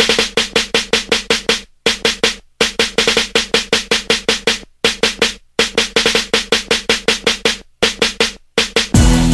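Intro of a hip hop beat: a drum machine plays rapid, evenly spaced hits, about seven a second, broken by brief pauses. Near the end the full beat drops in with deep bass.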